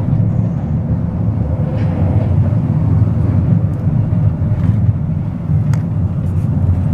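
Castle Hill funicular car rolling along its track: a steady low rumble with a few faint clicks.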